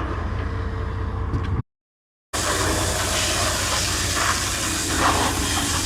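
Tractor engine running steadily with a low rumble. An abrupt cut to silence comes about one and a half seconds in, followed by a loud, steady rushing hiss.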